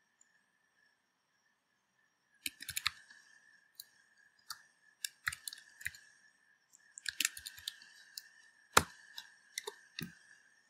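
Computer keyboard typing in short bursts of keystrokes, starting about two seconds in, with one louder key strike late on. A faint steady high whine runs underneath.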